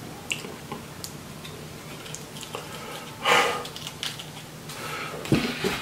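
Fingers breaking apart a fortune cookie: faint scattered crackles and clicks, with one loud breath about three seconds in.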